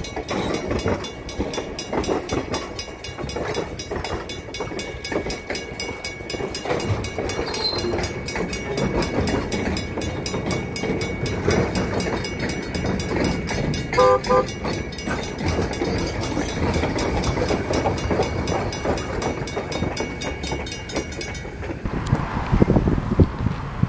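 Slow excursion train of open-air passenger cars rolling past over rough, jointed track, with a steady rumble and clatter from the wheels. A grade-crossing bell rings rapidly, stopping shortly before the end. A brief tooting tone comes about midway, and near the end the steam locomotive passes, hissing steam.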